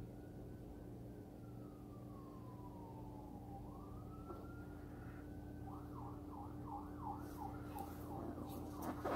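Faint emergency vehicle siren: it wails in slow rising and falling sweeps, then switches to a fast yelp about six seconds in. Under it runs a steady low hum, and a few light clicks come near the end.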